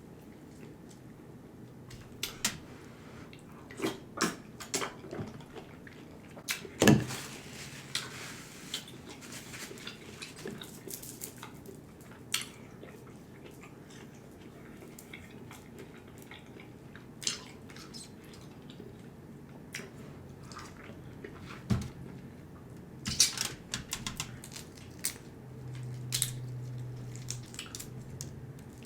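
Close-up eating sounds of a seafood boil: wet chewing, lip smacks and scattered clicks, one sharp smack about seven seconds in and a cluster of them near the end. A low steady hum lasts about two seconds near the end.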